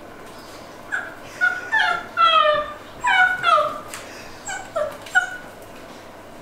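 Belgian Malinois puppy whimpering and yelping in a run of about ten short, high cries that mostly fall in pitch, with one longer whine in the middle.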